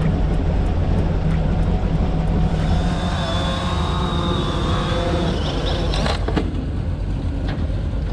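A low, steady engine drone, most likely the airboat's engine idling. From about two and a half seconds in, the high whine of a hovering quadcopter drone's propellers joins it, and the whine cuts off about six seconds in.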